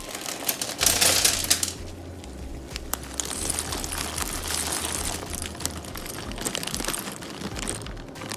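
Plastic bag of dry penne crinkling loudly about a second in, then the dry pasta pouring out of the bag into a pot of boiling water: a hiss with many quick clicks and rattles of pasta pieces.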